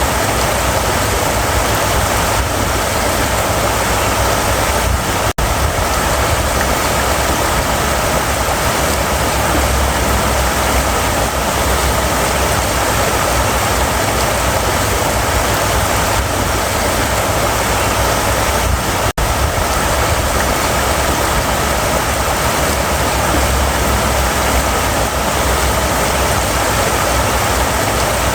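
River water rushing steadily over rocks, a constant full rush with a deep low rumble under it. The sound cuts out for an instant twice, about five seconds in and again about nineteen seconds in.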